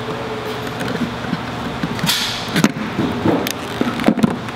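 Small sharp clicks and taps of needle-nose pliers and a soldering iron working at the terminals of an RF95 control box, clustered in the second half. There is a brief hiss about two seconds in, over a steady low hum.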